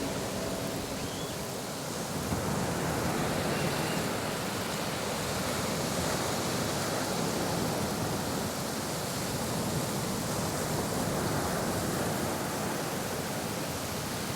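Steady rushing noise, like surf or running water, closing an electronic music track. The last held synth tones die away within the first second.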